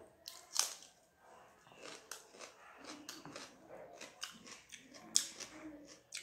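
A person chewing and biting food close to the microphone: crunches and sharp wet mouth clicks, with two louder bites about half a second in and about five seconds in.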